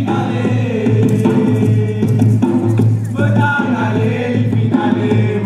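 Live Mauritian sega music: voices singing over a steady low beat of hand-played ravanne frame drums.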